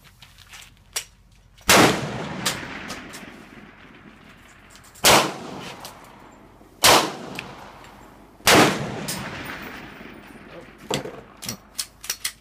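Four pistol shots fired at uneven intervals, each followed by a long echo that dies away over a second or more. A run of fainter sharp cracks comes near the end.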